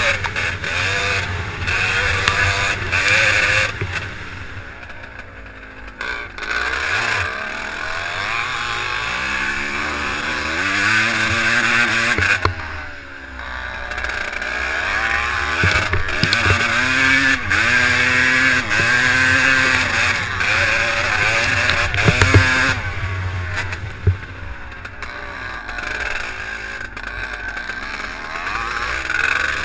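Vintage twinshock motocross bike ridden hard, its engine revving up and dropping back again and again through the gears, with wind rushing over the microphone. The engine backs off twice, and a couple of sharp knocks come in the second half.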